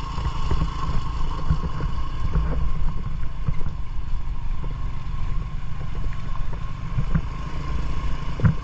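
Motorcycle riding over a rough gravel road, heard as a dense low rumble of wind buffeting the microphone, with a thin steady tone and scattered small knocks.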